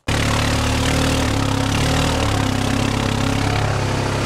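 Vehicle engine running steadily, heard from inside the cabin: an even low hum under constant rushing noise.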